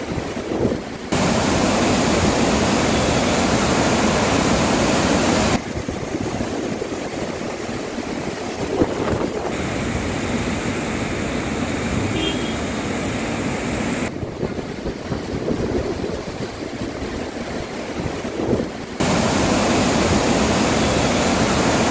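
Swollen Narmada river in flood: a steady rushing of fast water, heard as several field recordings that cut abruptly from one to the next with sudden changes in loudness. The loudest stretch, near the end, is the river pouring over a submerged bridge.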